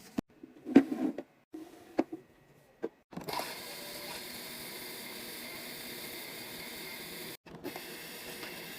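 Sharp clicks and knocks of containers and lids being handled while a fridge is restocked, then a steady hiss from about three seconds in.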